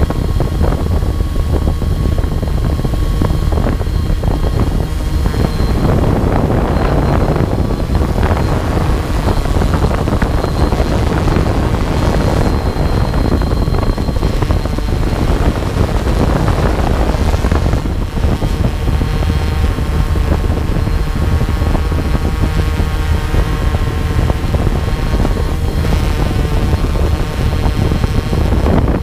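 Motor and propeller hum of a small aircraft in flight, with steady whining tones that grow stronger in the second half, over heavy wind rumble on the microphone.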